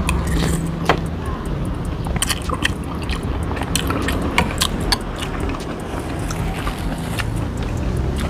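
Eating sounds: chewing a mouthful of soup with noodles, and a metal spoon and fork clicking against a ceramic bowl in scattered short ticks, over a steady low hum.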